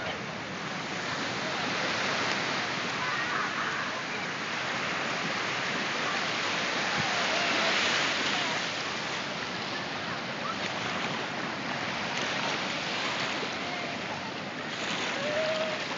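Shallow ocean surf washing in over the sand, a steady rushing hiss that swells to its loudest about halfway through.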